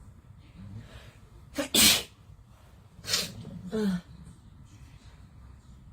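A woman sneezing, set off by a nasal swab: one loud sneeze about two seconds in, then two more in quick succession around three to four seconds in.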